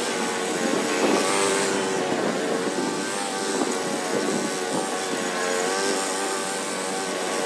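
Small gas engine of lawn equipment running steadily, its pitch wavering slightly.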